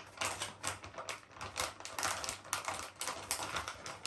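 Rapid, irregular clicking and scratchy rubbing, several clicks a second, from hands working over a plastic TV remote and cleaning items.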